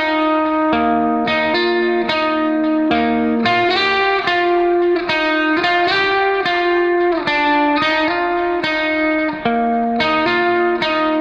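Background music played on guitar: sustained notes changing about every half second to a second, at a steady level.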